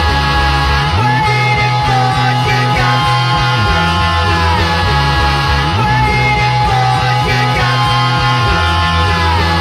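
Alternative metal band playing live: distorted guitars over bass and drums, with sustained high notes that slide down in pitch every two to three seconds over a heavy, pulsing low end.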